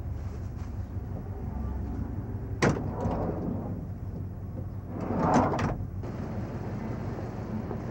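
A van's side door being opened from inside: a sharp clunk of the latch about two and a half seconds in, then a longer, louder rush with a few knocks as the door opens around five seconds in, over a steady low hum.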